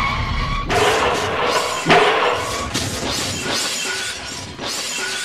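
Bus crashing into a truck, heard from inside the bus: a sudden loud crash about a second in, a second sharp impact about a second later, then glass shattering and breaking for several seconds.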